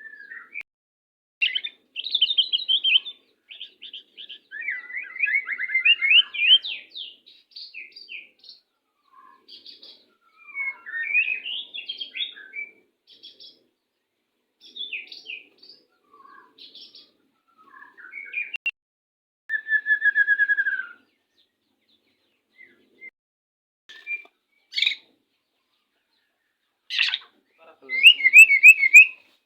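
White-rumped shamas singing and calling in short, varied whistled phrases with pauses between them, including a clear falling whistle about 20 seconds in and the loudest burst near the end.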